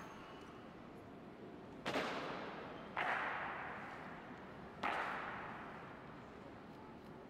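Three sharp, loud stamps of the honor guards' drill boots on a marble floor, the second about a second after the first and the third nearly two seconds later, each ringing out in a long hall echo.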